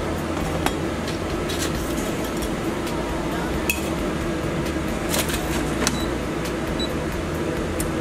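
A few light clinks of a utensil against the metal air fryer basket and a plate as hash browns are lifted out, over a steady fan hum.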